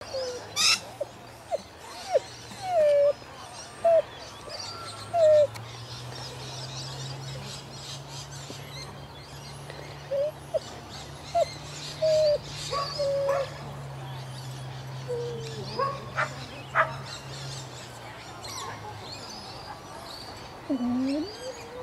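A dog whining in short, high-pitched whimpers, repeated a dozen or so times with gaps between, over faint bird chirps and a low steady hum.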